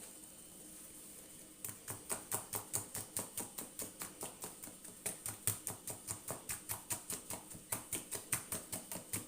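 Cake batter being mixed by hand in a bowl, the utensil knocking against the bowl in a steady rhythm of about four strokes a second, starting about a second and a half in.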